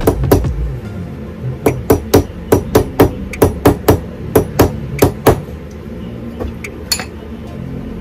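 Small jeweller's hammer striking in a run of quick, sharp taps, about three or four a second, that stops a little after five seconds in, with one more tap near the end.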